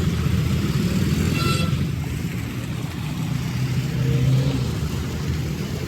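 Tractor engine running steadily, with a swell in level and pitch about four seconds in.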